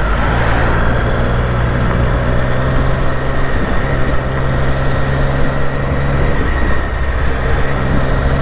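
Triumph Street Triple RS 765 cc inline-three engine running steadily at low revs, about 2,500 rpm in third gear, with a smooth purr. Its pitch edges up slightly near the end.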